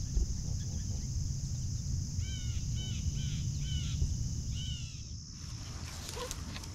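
Canada geese on the ground close by give about five short honking calls, a little over two seconds in, each rising and falling. Crickets keep up a steady high drone throughout, over a low rumble.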